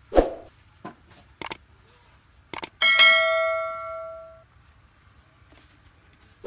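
Subscribe-button overlay sound effect: a few short mouse clicks, then a bell ding that rings out for about a second and a half. There is a thud near the start and another at the end.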